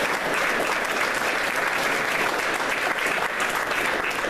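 Audience applauding: steady, dense clapping from a room full of people, tapering off shortly after the end.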